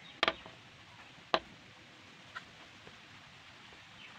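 Light knocks of flat wooden pieces being handled and set down on a wooden board: a quick double knock, a sharper single knock about a second later, then a few faint taps.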